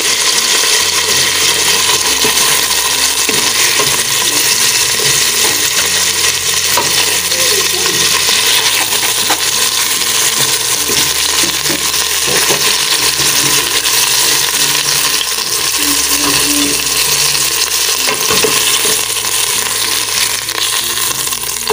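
Chicken pieces frying in hot oil in a pot, a steady loud sizzle as they brown, with a few light knocks as pieces are lifted out.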